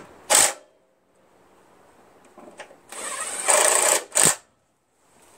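Cordless impact driver running in 3/8-inch bolts on a snowblower: a short burst about half a second in, a longer run of about a second a little before the end that gets louder as it goes, then one more quick burst.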